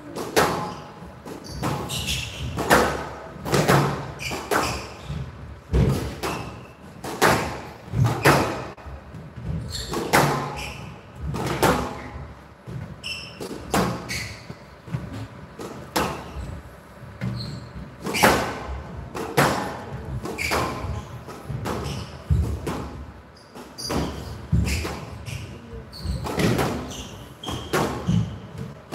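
Squash rally: the rubber ball cracks off the rackets and smacks against the front and glass walls, a sharp hit about every second. Each hit echoes in a large hall.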